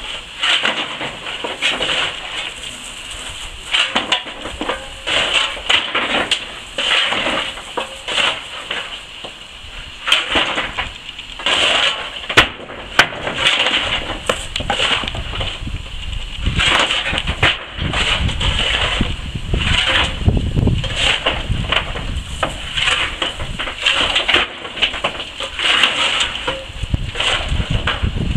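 Coal being shovelled and tipped into a steam locomotive's bunker: a long run of irregular crunching and clattering scrapes, with a steady steam hiss from the engine underneath and a low rumble partway through.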